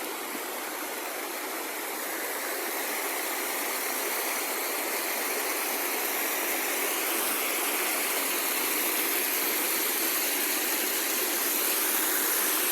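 Waterfall rushing in a steady roar of water, growing gradually louder.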